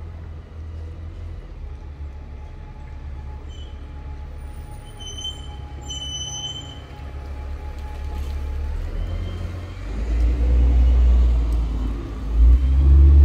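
Street traffic: motor vehicles going by with a steady low rumble, and a brief high squeal about five seconds in. The rumble swells much louder over the last few seconds as a vehicle passes close.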